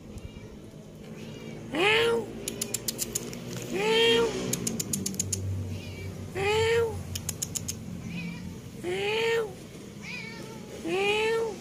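A domestic cat meowing five times, about every two to two and a half seconds. Each meow rises and then falls in pitch. A quick run of sharp clicks comes between the first two meows.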